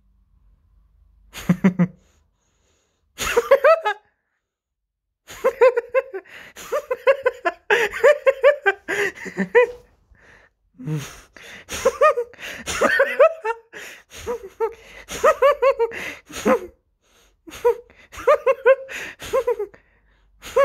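A person's fit of high-pitched laughter, in repeated bouts of quick ha-ha pulses with short pauses between.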